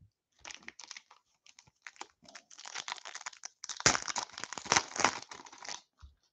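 Foil wrapper of an Upper Deck hockey card pack crinkling and tearing as it is ripped open by hand. The crackling builds and is loudest about four seconds in, then dies away shortly before the end.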